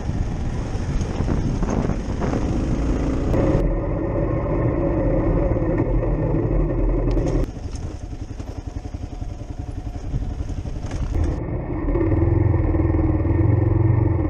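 Kawasaki KLR 650's single-cylinder four-stroke engine pulling under throttle on a dirt trail. About halfway through it eases off and goes quieter for a few seconds, then opens up again near the end.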